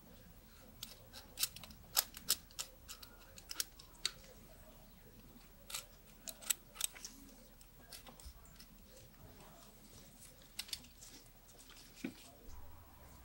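Irregular sharp clicks and scrapes of a knife blade cutting into a ficus bonsai's trunk, carving grooves for grafting branches.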